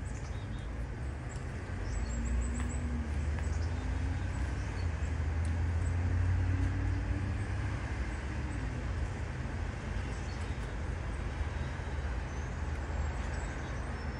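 Low rumble of a vehicle engine, swelling from about two seconds in and easing after about eight seconds, with faint high chirps over it.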